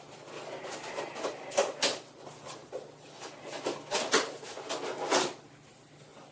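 Cardboard box being handled and opened by hand: a run of irregular scrapes, rustles and knocks, the loudest near two, four and five seconds in.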